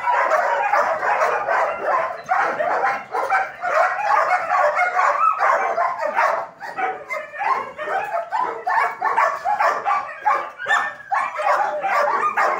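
Kennelled shepherd-type dogs barking continuously, many sharp barks a second overlapping one another with no pause.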